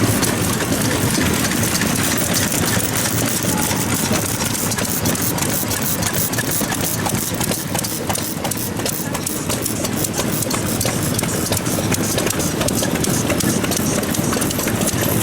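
Old stationary farm engines (hatsudōki) running at idle, a steady chugging with a rapid patter of exhaust beats and ticks.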